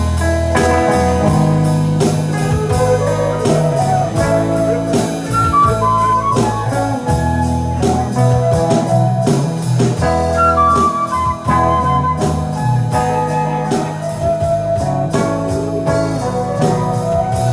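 Live band playing a song's instrumental intro: guitar and electric bass over a steady drum beat, with a saxophone carrying the melody line.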